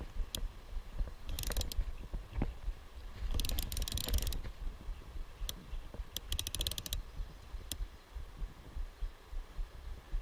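Metal pincers bouncing against a GoPro's plastic housing, rattling in three short bursts of rapid clicks, with a few single clicks between, over a steady low rumble.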